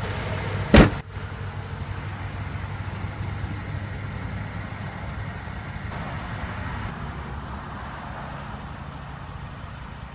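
BMW X6 xDrive35i's 3-litre twin-turbocharged inline-six engine idling steadily with a low hum. About a second in there is a single loud thump.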